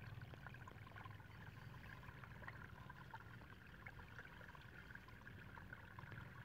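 Near silence: faint outdoor ambience by a muddy ditch, with a faint trickle of water, small ticks, and a thin steady high tone.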